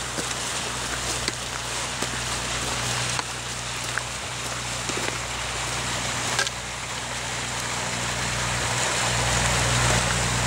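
Motor cruiser's engine running as the boat comes up the canal and passes close by, a low steady drone that grows steadily louder toward the end.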